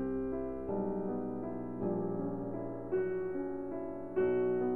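Slow piano music: soft chords struck about once a second, each left to ring and fade.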